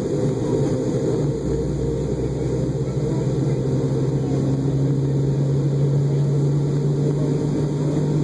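Boeing 717-200 cabin noise while taxiing, heard inside the cabin: the two rear-mounted Rolls-Royce BR715 turbofans run at low ground power as a steady hum. Its low tone edges slightly higher about three seconds in.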